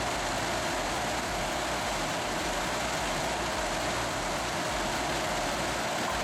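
Heavy wood-processing machinery running steadily, a continuous engine and machine noise.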